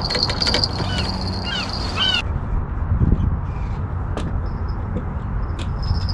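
Gulls calling, a string of short rising-and-falling cries, until about two seconds in; after that a low rumble with a few sharp clicks.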